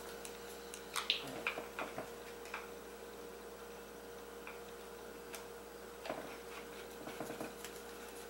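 Faint, irregular clicks and ticks of a hand screwdriver driving small screws back into the plastic cover of a nitro RC truck's receiver box, over a faint steady hum.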